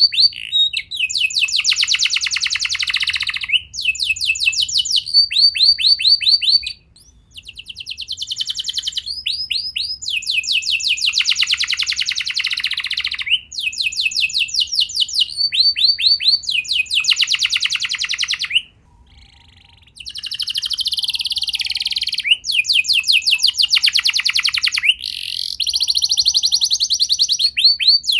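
Domestic canary singing: a long song made of fast trills, each phrase a run of rapidly repeated high notes that shifts to a new note type every few seconds, with brief pauses about seven and nineteen seconds in.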